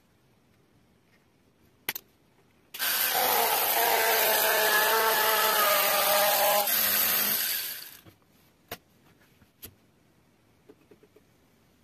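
Handheld mini rotary tool with a burr bit grinding through PVC sheet: a steady high whine with gritty grinding noise for about five seconds, then it winds down. A few sharp clicks of handling before and after.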